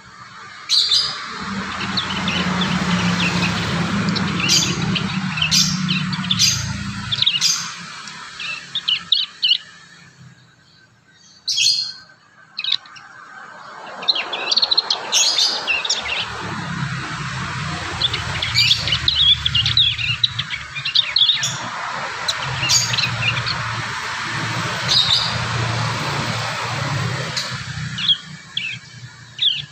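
Young prinias (prenjak) practising their song: quick, sharp, high chirps and short twittering phrases, uneven and unsettled as birds still learning to sing. A steady low hum with a hiss runs under them for long stretches, dropping away around the middle.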